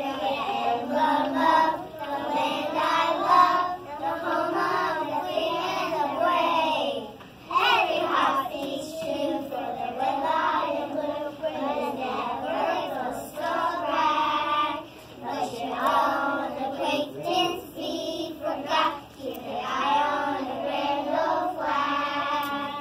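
A group of young children singing together in unison, in phrases with short breaks between them.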